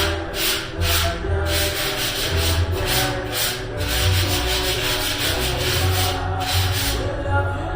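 Sandpaper rubbed back and forth across a ceiling by hand in repeated strokes, about two a second and quicker for a while, with a short pause near the end. Background music with held tones plays underneath.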